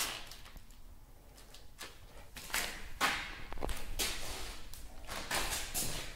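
Quiet scuffing footsteps on a gritty concrete floor: a string of short, irregular shuffles and scrapes.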